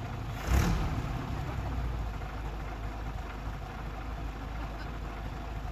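Vintage car engines idling with a steady low rumble. A short, loud burst of sound comes about half a second in and fades over about a second.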